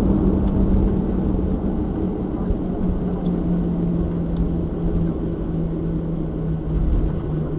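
Cabin noise of a Boeing 737-800 taxiing: the CFM56-7B engines running at idle, a steady rumble with a hum whose pitch drifts slightly lower.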